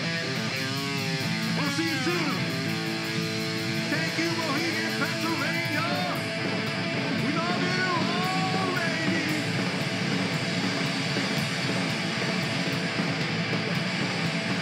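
Live rock band playing: electric guitar, bass guitar and drums with steady cymbal hits. A male singer's voice wails over the band for roughly the first two thirds, then the instruments carry on alone.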